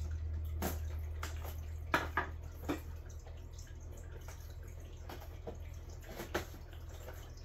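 Cardboard box and plastic tray of an action figure's packaging being handled and opened: scattered clicks and crinkles over a low steady hum that fades after about two seconds.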